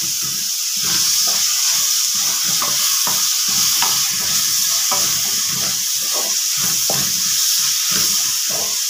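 Onions, tomatoes and herbs sizzling in oil in a metal kadai, with a wooden spatula stirring and scraping the pan at about two strokes a second.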